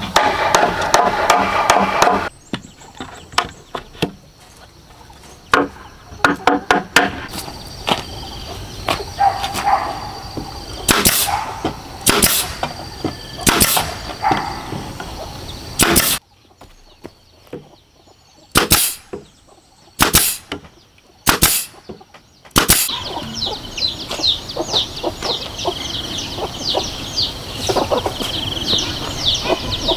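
Pneumatic nail gun firing nails into bamboo poles: a run of sharp, loud shots a second or two apart through the middle, with fainter clicks before them. Birds chirp near the end.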